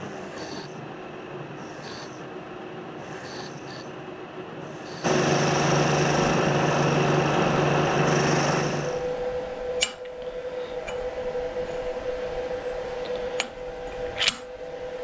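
Vertical milling machine with an end mill cutting steel angle iron, a steady machining sound that turns much louder for about four seconds in the middle. After that a steady hum remains, with three sharp metal clinks near the end.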